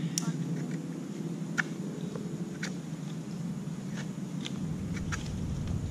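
Knife shaving a wooden stick: several short scraping ticks, roughly one a second, over a steady low hum.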